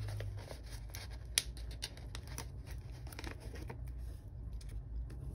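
Paper sticker sheet rustling and crinkling in the hands as stickers are peeled off its backing, with scattered light clicks and taps. The sharpest click comes about a second and a half in, and it goes quieter after about four seconds.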